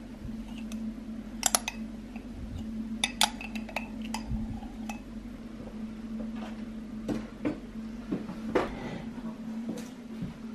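Dishes and cutlery clinking and knocking in scattered, irregular clicks, with a steady low hum of an appliance underneath.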